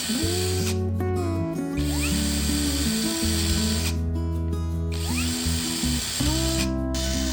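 Power drill running in several bursts, its whine rising and then holding steady each time it starts, over background music.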